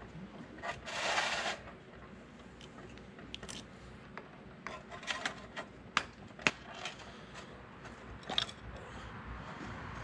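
Screws being backed out of a small-engine carburetor with a screwdriver over an aluminium pan: a short scrape about a second in, then scattered sharp metal clicks and clinks, the loudest two about six seconds in and another near eight and a half seconds.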